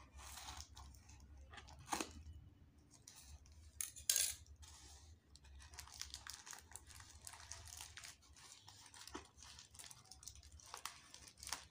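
Scissors cutting through a plastic courier mailer, then the plastic crinkling and tearing as the package is pulled open and the boxed tripod drawn out. There are a few sharp, louder crackles about two and four seconds in.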